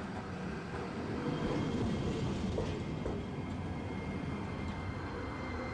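Tosaden streetcar running along its line, heard from inside the car: a steady rumble of wheels on rail with faint steady whining tones above it, swelling slightly a second or two in.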